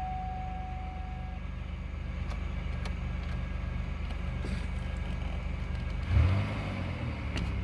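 GM six-cylinder engine running steadily on new spark plugs, plug wires and coil packs, sounding smooth, with no misfire after a random-misfire fault. About six seconds in the revs briefly rise and fall.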